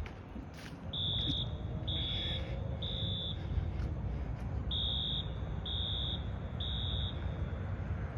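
Wheelock AS fire alarm horn sounding the temporal-three evacuation pattern: three high, steady beeps about a second apart, a pause, three more, and a new set starting near the end. A low steady rumble lies underneath.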